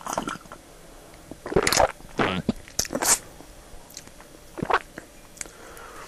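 A person drinking from a mug: several separate gulps and swallows, spaced out over the first few seconds, with one more near the end.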